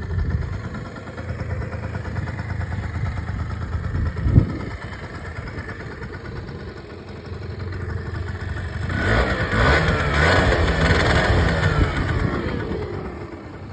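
Suzuki Verde 50cc two-stroke single-cylinder scooter engine running, with a sharp knock about four seconds in. It revs up about nine seconds in and then falls back near the end. The noise is an early symptom of a failing crankshaft bearing.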